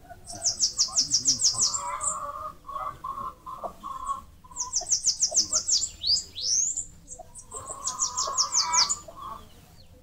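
Bananaquit singing: three bursts of rapid, high, thin notes, each burst about a second long. A couple of sweeping whistled notes follow the middle burst, and a lower chatter sounds beneath the first and last bursts.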